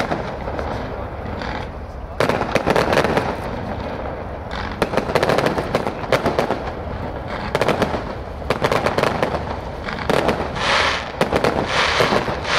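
Aerial fireworks shells bursting, with rapid crackling in repeated clusters of one to two seconds, separated by short lulls.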